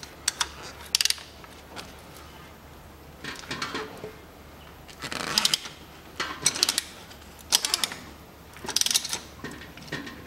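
Ratchet handle turning a clamp-type oil filter wrench to loosen a spin-on engine oil filter: several short bursts of quick ratchet clicking with pauses between the strokes.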